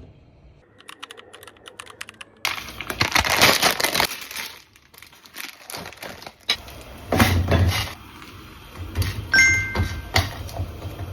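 Crinkling, rustling and clicking as food packaging and a fork are handled during noodle preparation. Loudest in stretches about three and seven seconds in, with a short two-tone beep about nine seconds in.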